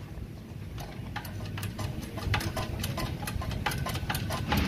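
Engine-crane lifting chain clinking and rattling against a transmission case as it is hooked up for lifting: a run of quick, irregular metallic clicks that grows busier, over a low steady hum.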